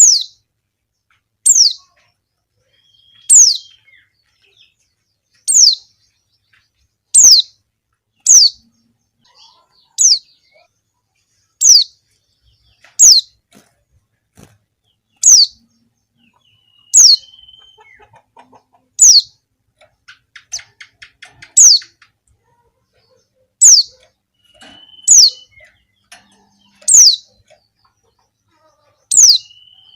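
Female white-eye (pleci) calling to males: a short, high note sliding downward, repeated about every one to two seconds.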